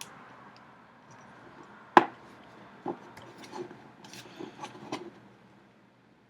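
A small socket knocking and scraping against the plastic print head of an M3D Micro 3D printer while working the print nozzle loose: one sharp knock about two seconds in, a smaller knock just after, then a run of light clicks and scrapes.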